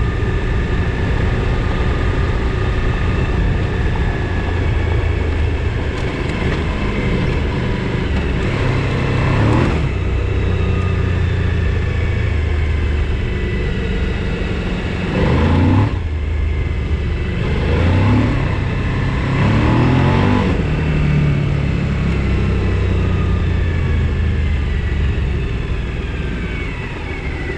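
Large V-twin adventure motorcycle engine pulling along a dirt road, with its pitch rising and falling through several throttle surges and gear changes between about 8 and 21 seconds in.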